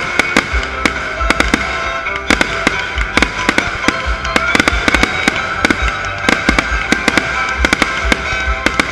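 Fireworks display going off in a rapid, continuous volley of bangs, cracks and crackles, several every second, with deep thumps under them. Music plays along underneath.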